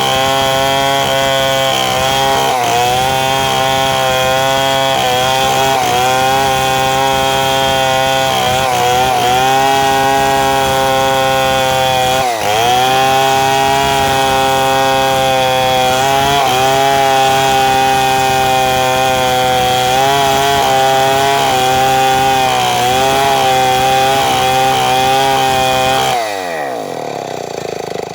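Two-stroke chainsaw running at high revs while cutting wood, its pitch dipping briefly every few seconds as it bogs under load. Near the end the throttle is released and the engine falls to a low idle with a steeply dropping pitch.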